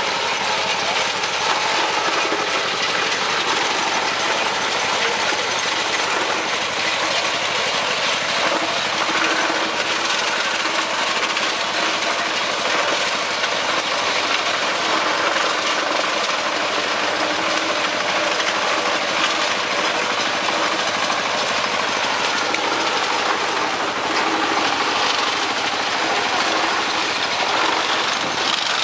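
A farm machine running steadily: a dense, even mechanical noise of engine and working parts with no pauses.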